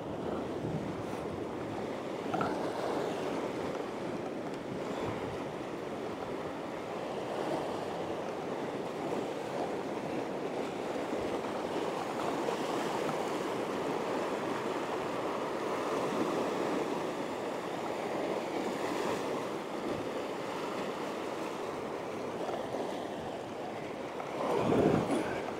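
Sea swell washing against a rocky shore ledge: a steady rush of surf, with one louder wave breaking and surging over the rocks near the end.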